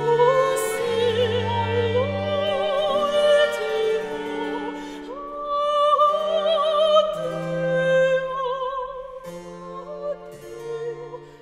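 Background music: a high operatic voice singing long, wavering notes with vibrato in Italian over a low instrumental accompaniment.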